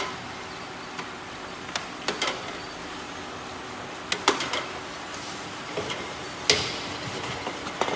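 Aerosol can filling line running: a steady machine hum, broken by irregular sharp metallic clinks and knocks as the metal aerosol cans jostle against each other and the guides on the conveyor.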